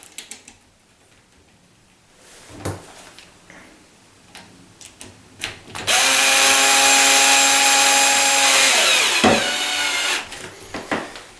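A power drill-driver runs steadily for about three seconds, driving one of the small latch faceplate screws into the edge of the door. Its motor pitch drops slightly just before it stops. Small handling clicks come before and after it.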